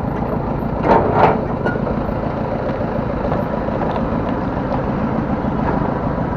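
Motorcycle engine running steadily while riding along, with road and wind noise. A short, louder sound comes about a second in.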